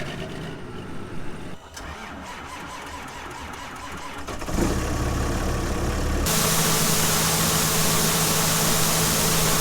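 Vehicle engine running while driving, with engine and road noise that grows louder about halfway through. Over the last few seconds a loud, even hiss with a steady hum beneath it takes over.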